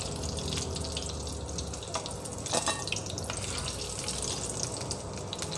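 Eggplant halves sizzling steadily in hot oil in a pan, with a few light clicks of a metal spatula against the pan as the fried pieces are lifted out.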